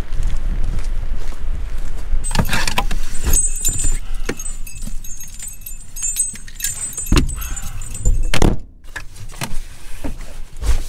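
Rucksacks and camping gear being loaded onto a car's back seat: rustling, knocks and clatter, with metal jingling among them. Wind buffets the microphone during the first couple of seconds.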